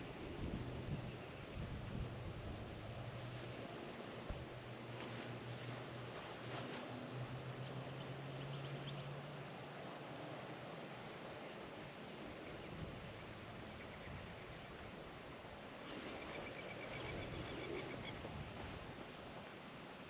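Insects, crickets by their sound, chirring in a steady high-pitched pulsing trill that never lets up, with a faint low hum underneath for part of the time.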